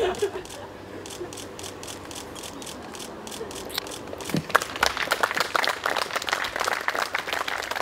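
Guests clapping: a few scattered claps and clicks at first, swelling into full applause about four and a half seconds in.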